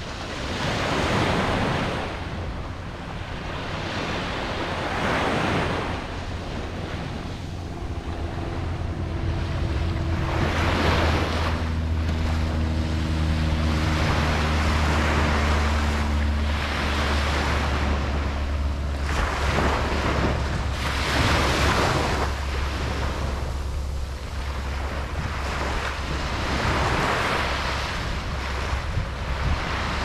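Ocean waves breaking and washing up the shore, swelling every few seconds, with wind rumbling on the microphone. A faint low droning hum with a few steady tones comes in about a third of the way through and fades out past the middle.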